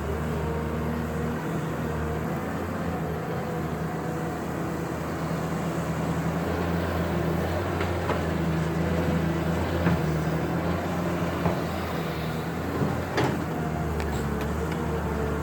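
Caterpillar 320 hydraulic excavator's diesel engine running steadily while digging, its pitch shifting a little with load, with a few sharp knocks.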